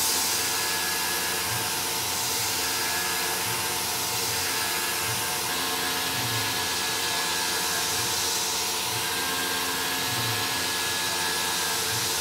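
Tormach PCNC 1100 CNC mill cutting aluminum with a long-reach two-flute carbide end mill: a steady spindle and cutting noise with a hiss, and a faint whine that comes and goes every couple of seconds.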